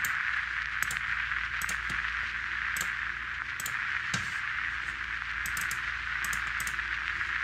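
Steady static hiss with scattered crackling clicks, over a faint low hum.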